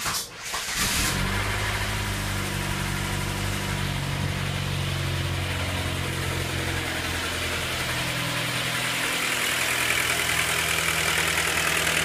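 2005 Pontiac Sunfire's 2.2-litre Ecotec inline-four cranked by the starter, catching about a second in, then idling steadily with a ticking sound. The tick is typical of these engines' stretched timing chain or overextending timing chain tensioner.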